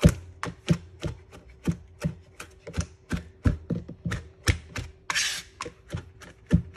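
Chef's knife rough-chopping cilantro leaves on a plastic cutting mat: steady, even knocks of the blade on the board, about four a second, with a brief scraping sound about five seconds in.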